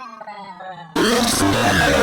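Meme sound effect: a drawn-out pitched voice, then about a second in a much louder, noisy blast of electronic music that cuts off abruptly.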